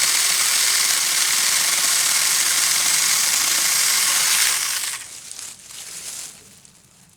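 Saker mini cordless electric chainsaw with a 4-inch bar cutting through a fruit-tree limb, a loud steady rasping cut that stops about four and a half seconds in. Fainter scattered noises die away after it.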